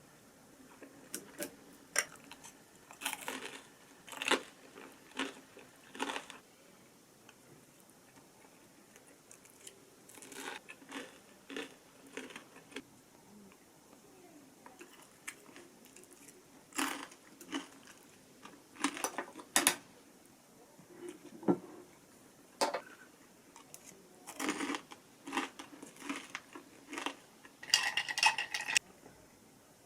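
Kitchen handling sounds: scattered clinks, taps and clatters of dishes and utensils, coming in irregular bunches with quiet gaps between and a denser ringing clatter near the end.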